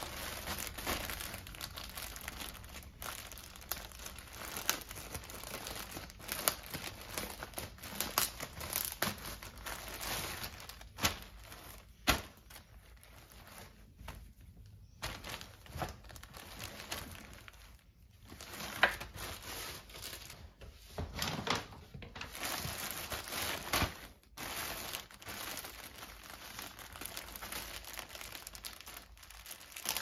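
Clear plastic garment bags crinkling and rustling as hands handle and open them, along with the rustle of the cotton clothing inside. The sound comes in irregular bursts with a few brief pauses.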